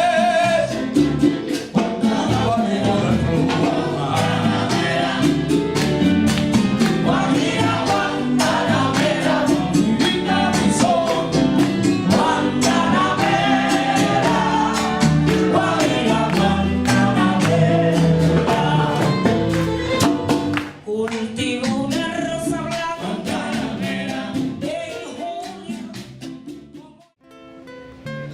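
Cuban song with singing, guitar and percussion, fading out about 26 seconds in. A quieter plucked-string tune starts just before the end.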